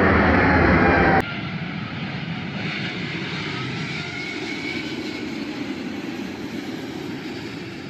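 Jet airliner engines passing low overhead: a loud roar with a falling whine that cuts off abruptly about a second in, then a quieter jet roar with a faint gliding whine that slowly fades.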